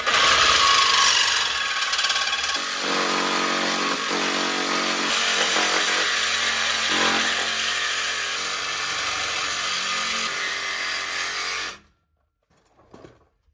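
DeWalt cordless reciprocating saw cutting through a truck's exhaust pipe just ahead of the catalytic converter: a harsh, steady metal-cutting buzz with some ringing from the pipe, stopping suddenly near the end as the blade goes through and the converter drops loose.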